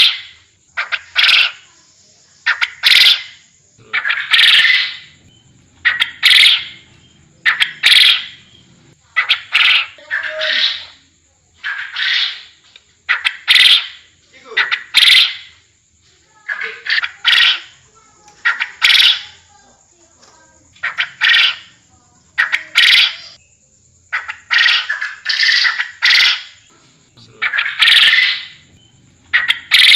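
Quail calls from a lure recording: short, sharp calls repeated about once or twice a second, often in close pairs.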